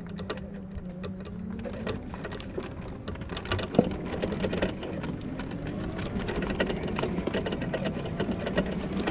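Electric buggy's drive motor running with a steady whine as it rolls over brush, with many small crackles and snaps of twigs under the wheels.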